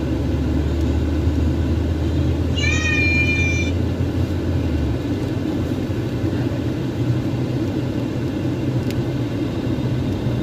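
Steady low rumble of a running vehicle, with one short high-pitched meow-like call about three seconds in. A deeper hum under the rumble cuts off about halfway through.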